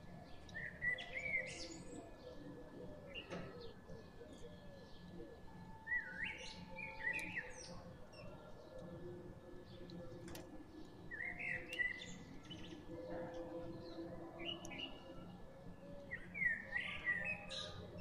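Brahminy starlings calling while they feed: short bouts of squeaky, warbling chirps every few seconds, about six bouts in all, with an occasional sharp tick.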